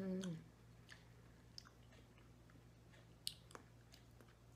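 Faint mouth sounds of a person chewing soft baked peach: quiet wet smacks and clicks at irregular intervals, one a little louder about three seconds in. It opens with the end of a low, slightly falling hum from the eater.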